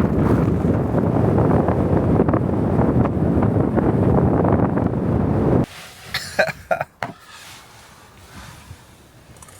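Blizzard wind buffeting the microphone with a loud, steady rush, which cuts off abruptly a little over halfway through. A few short, sharp sounds follow in the quieter remainder.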